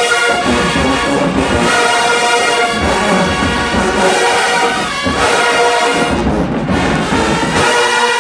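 Marching band playing loudly, with massed brass over a steady drum beat.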